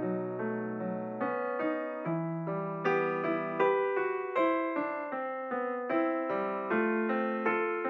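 Background piano music: a steady, even flow of struck notes and chords.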